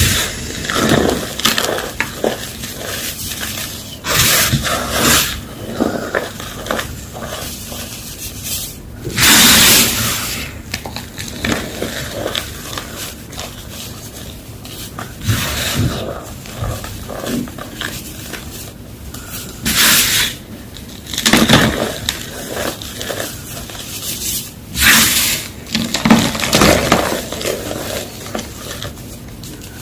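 Homemade gym chalk block being crunched close to the microphone: sharp, crisp crunches every few seconds, with softer crumbling and scraping between them.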